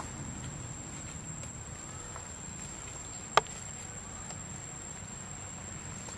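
Steady high-pitched insect drone over faint outdoor background, with one sharp click about three and a half seconds in.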